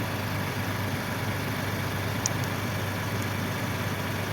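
A steady low mechanical hum, like an engine idling, with a faint click a little past halfway.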